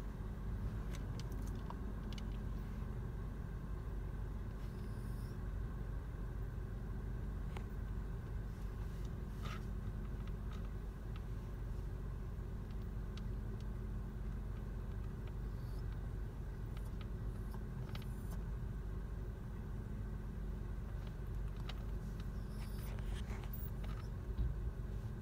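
Steady road and engine rumble inside a moving car's cabin, with a few faint clicks.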